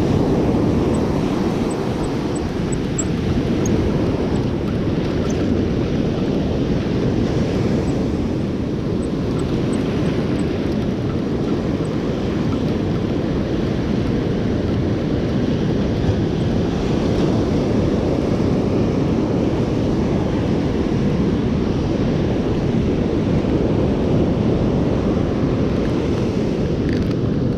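Surf breaking and washing up a sandy beach under a steady, heavy rumble of wind buffeting the microphone.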